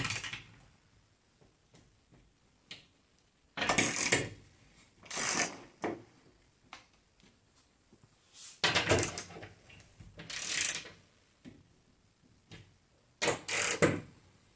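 Hand socket ratchet clicking in about five short bursts as lag screws are tightened through a steel TV wall-mount bracket into the wall studs.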